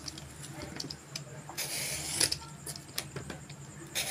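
A handheld Y-peeler scraping the ridged skin off a ridge gourd in a run of short, uneven scraping strokes, one of them longer about halfway through.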